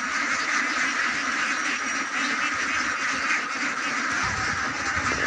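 A large flock of domestic ducks quacking all at once, hundreds of calls overlapping into a steady, continuous din.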